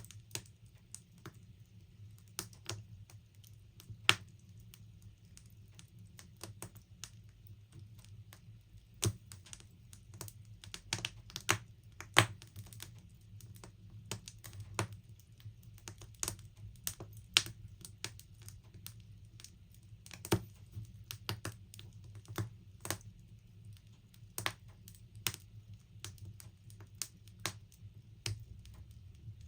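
Logs burning in a log burner, crackling with irregular sharp snaps and pops, a few much louder than the rest, over a low steady rumble.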